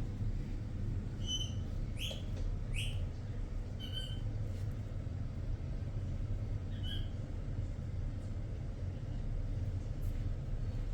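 Albino conure giving short, high chirps in small clusters over the first few seconds, then a few sparser chirps later. A steady low hum runs underneath.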